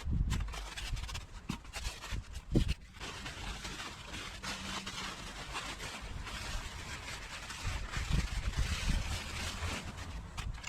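Homemade sand screening machine driven by a washing-machine motor, running with a steady hiss and low rumble, with a few sharp knocks in the first few seconds.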